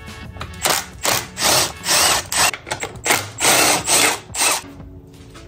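Handheld power tool, drill-type, run in a series of short bursts about every half second, stopping a little past four seconds in. It is working on the fasteners while the motorcycle's radiator is being removed.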